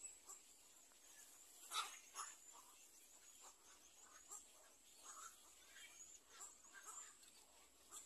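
Black-crowned night heron nestlings giving faint, short begging calls at scattered moments, with one louder sharp call about two seconds in.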